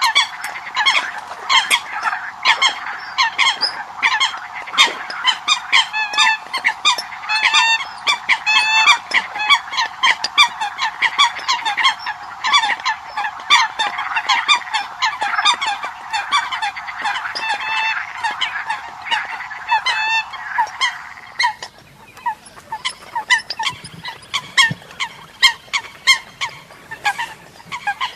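Eurasian coots calling: many short calls overlapping, several a second, like a flock. About three-quarters of the way through the calls turn fainter and sparser.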